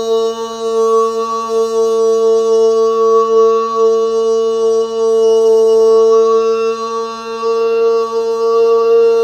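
A sustained musical drone: one steady tone with a rich stack of overtones, holding the same pitch throughout, with a slight waver in loudness.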